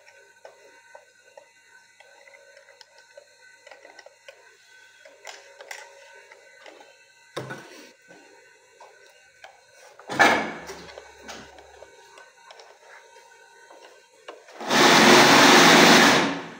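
Aerosol spray can hissing in one steady blast of about a second and a half near the end, sprayed onto the needle and looper mechanism of an industrial sewing machine. Before it, faint clicks of hands handling the machine's parts, and a short, louder clatter about ten seconds in.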